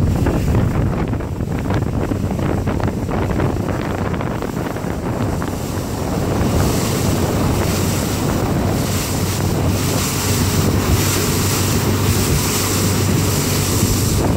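Motorboat engine running steadily at towing speed, with wind buffeting the microphone and the rush of water from the wake. The wind and water hiss grows louder about halfway through.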